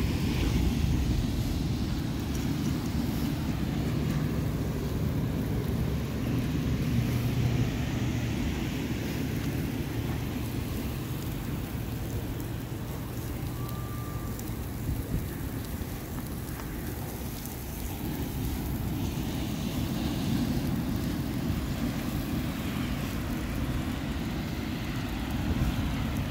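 Steady low rumble of wind and ocean surf, swelling and easing slowly, with a faint hiss and crackle from steaks grilling over charcoal.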